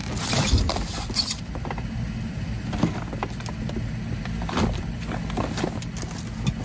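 Rummaging in a dumpster's trash as plastic soda bottles and cans are pulled out: an irregular run of knocks, clunks and crinkles over a low steady rumble.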